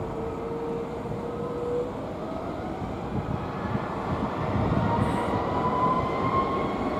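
Airbus A330-300 twin-engine airliner's jet engines spooling up on the runway: a whine rising steadily in pitch over a broad rushing jet noise that grows louder about halfway through, as thrust builds for the takeoff roll.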